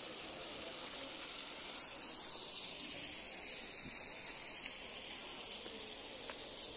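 A steady hiss of outdoor background noise, strongest in the upper range, with no distinct events.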